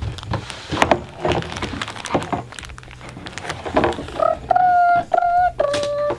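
Plastic wrapping crinkling and rustling as pipe cleaners are pulled from their pack, then, from about four seconds in, a high voice humming a few held notes of a tune.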